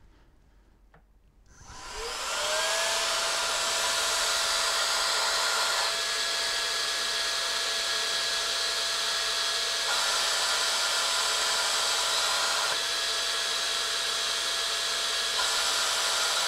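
CPAP blower fan, its intake fitted with a baffle muffler, spinning up about a second and a half in: a whine rises and settles to a steady pitch over a rush of air. It then runs steadily at full speed, the rushing changing slightly in tone a few times.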